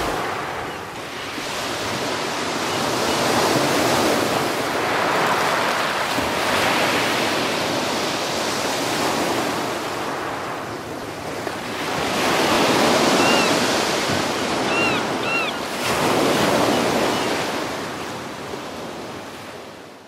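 Ocean surf: waves washing onto a sandy shore in slow swells that rise and fall every few seconds. A few short bird calls come about two-thirds of the way in, and the surf fades out at the end.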